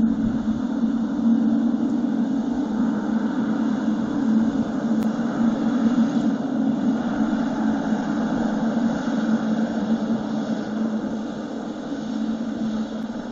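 Boeing 777-300ER's GE90 turbofan engines running at taxi power as the airliner rolls along the runway, a steady jet rumble and whine that eases off over the last few seconds as the aircraft turns away.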